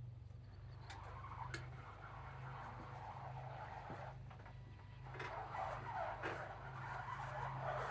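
Homemade electric RC bulldozer running, its drive motors giving a steady low hum. Over the hum come scraping and clicking from the tracks and blade, in two spells with a short lull about four seconds in.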